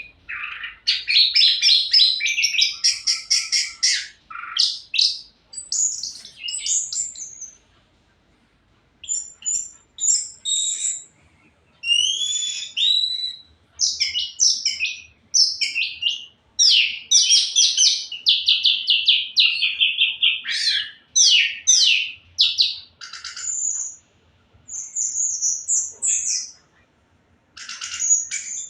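Orange-headed thrush (anis merah) singing vigorously in long bursts of fast trills and varied whistled phrases, some notes gliding up or down, with short pauses between bursts.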